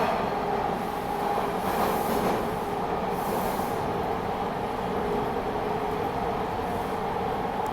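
TTC Line 2 subway train running, heard from inside the car: a steady rumble with a held motor whine. Two brief high hisses come about two and three seconds in.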